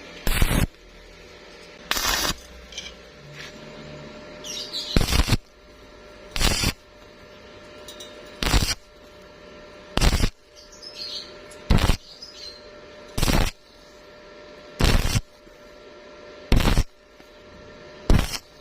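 Stick-welding arc on thin square pipe, struck in short crackling bursts of about half a second each, roughly every second and a half, as in a stitch or whip technique.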